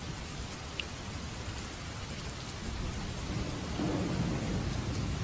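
Steady rain, with a low rumble of thunder swelling up about halfway through and fading near the end.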